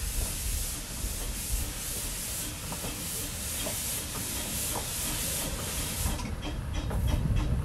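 Miniature steam locomotive hissing steam as it rolls slowly in. About six seconds in, the hiss eases and a quick clicking of its wheels on the rails comes through.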